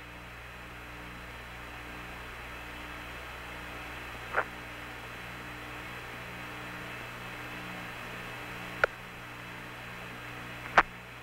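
Steady hum and hiss of the Apollo air-to-ground radio and TV downlink with no one talking, broken by three short clicks about four, nine and eleven seconds in, the last one the loudest.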